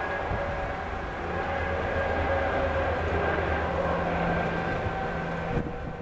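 Outdoor tornado warning siren sounding during a test, a steady wail that swells and fades, over the low rumble of wind on the microphone.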